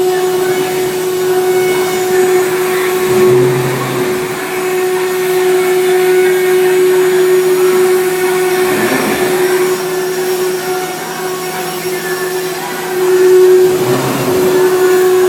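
Omnitech CNC router running as it cuts parts: a steady whine from the spindle over a rushing noise, briefly louder about three seconds in and again near the end.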